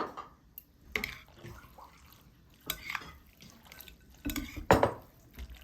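Cutlery clinking and knocking against dishes at a meal: several short, separate knocks, the loudest near the end.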